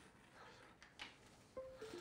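Near silence with a faint click about a second in, then a short, faint chime stepping down over two or three notes near the end: the computer's alert for a newly connected USB device.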